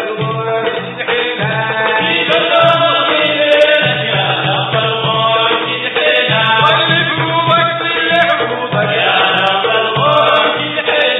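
Sudanese Sufi madeeh: a sung religious chant in praise of the Prophet Muhammad, with melodic voices over a strong low accompaniment.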